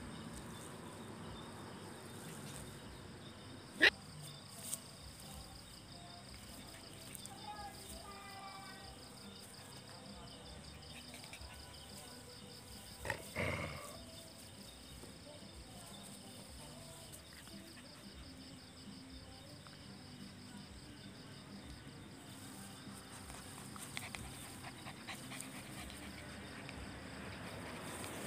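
A black puppy and an older dog playing, with a few short dog vocalizations; the loudest comes about 13 seconds in. A single sharp click about 4 seconds in is the loudest moment. Crickets chirr steadily underneath.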